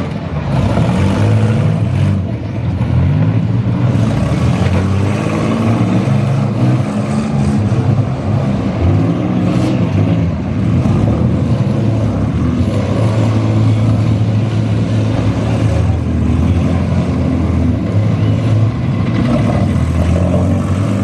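Several minivan engines running and revving hard at once in a demolition derby, their pitches rising and falling against each other.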